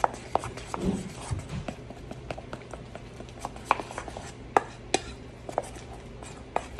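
A utensil clicking and scraping irregularly against a stainless steel mixing bowl as an egg and cornstarch batter is stirred by hand.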